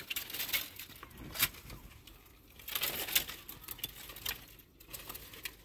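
Bare tree branches being pulled down and broken by hand: a string of sharp cracks and snaps, irregularly spaced, with rustling of twigs between.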